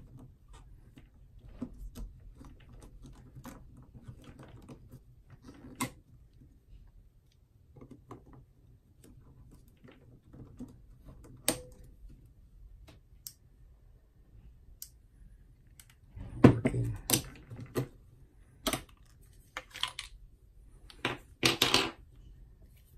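Scattered plastic clicks and knocks from a Sea & Sea YS-D2 underwater strobe's battery cap being twisted on and off and AA batteries handled. Louder clatter comes about two-thirds of the way in and again near the end, as batteries are set down on a hard table.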